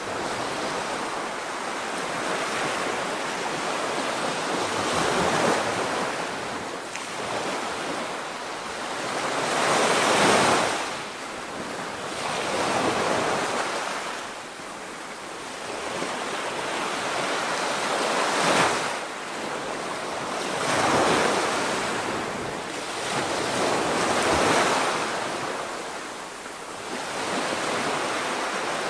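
Ocean surf: waves breaking and washing in, the rush of water swelling and fading every few seconds.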